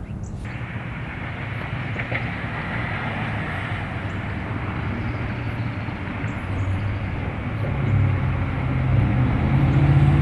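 A vehicle running with a steady rumble and road-like noise, growing louder toward the end.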